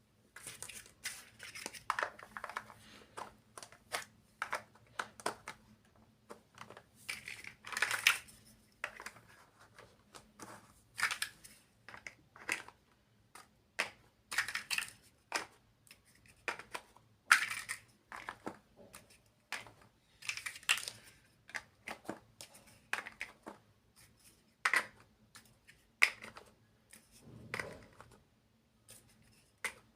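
Plastic building blocks being handled and pressed together at close range: irregular sharp clicks and taps with short rustling stretches, over a faint steady hum.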